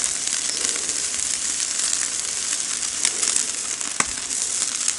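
Fish fillets sizzling on the grate of a charcoal kettle grill: a steady hiss with a few sharp pops, two of them about three and four seconds in.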